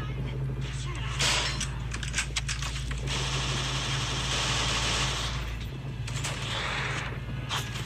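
Gunfire sound effects: a string of sharp shots, then a dense stretch of rapid automatic fire, with more shots near the end. Underneath runs a steady low rumble that drops away a little before the last shots.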